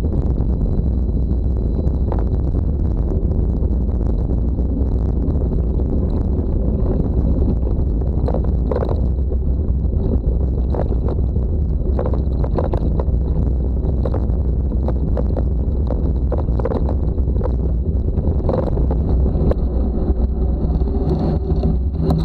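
Wind buffeting the microphone of an action camera on a moving mountain bike riding a dirt road: a steady deep rumble with scattered clicks and rattles from bumps.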